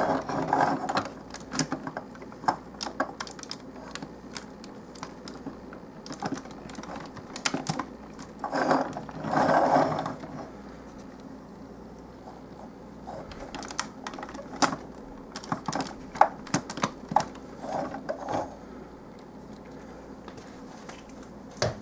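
Hard plastic parts of a Transformers Long Haul dump-truck toy clicking and rattling as they are moved by hand, with irregular sharp clicks throughout and louder rustling handling noise at the start and again about nine seconds in.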